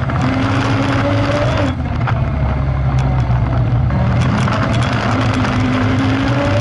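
Off-road vehicle engine pulling under load through shallow water and mud, with water and mud splashing around the wheels. About two seconds in the engine note drops briefly, then picks up again.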